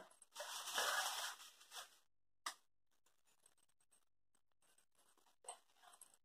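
Rustling and scratching noises, strongest in the first two seconds, with a sharp click about two and a half seconds in and a few softer clicks and rustles near the end.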